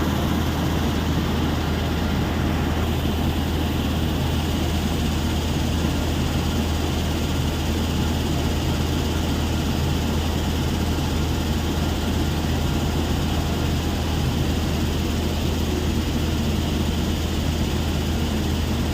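Heavy machinery at a rock crushing plant running steadily: a continuous deep mechanical drone with a rumbling noise layered over it.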